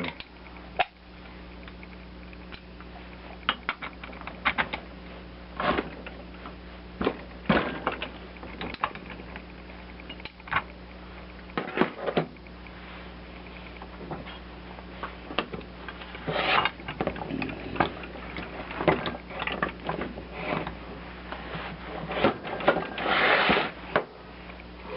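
Irregular metal clinks, knocks and scrapes of tools and vise parts as the bench vise's center pivot bolt is fitted and tightened, with a longer scrape near the end, over a steady low hum.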